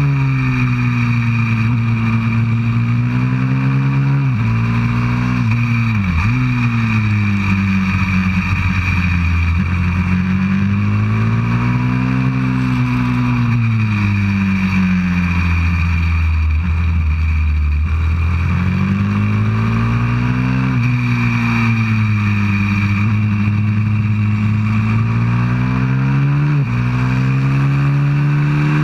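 190cc pit bike's single-cylinder four-stroke engine revving up and down as it is ridden hard around the track. The pitch swells and falls repeatedly, with a few sudden drops, at about 4, 6, 20 and 26 seconds in, that fit gear changes.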